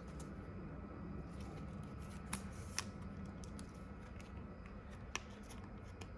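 Trading cards being handled: three light, sharp clicks of card stock against a low steady background hum.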